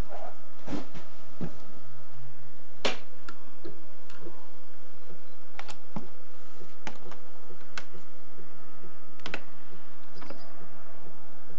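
Camcorder handling noise: scattered sharp clicks and taps, about nine at uneven intervals, over a faint steady electrical hum.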